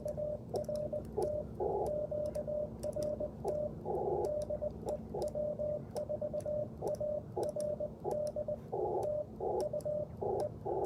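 Morse code sidetone from an Icom IC-705 sent with a paddle key: one steady mid-pitched tone keyed into quick dots and dashes, the operator's QRT (sign-off) call. Short patches of receiver hiss break in during the longer gaps between characters.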